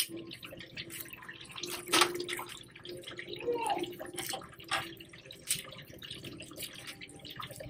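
Wet clicks and crackles of a raw lobster tail's shell being handled and bent as fingers work the meat loose from it, with a sharp crack right at the start and another about two seconds in. A faint steady hum runs underneath.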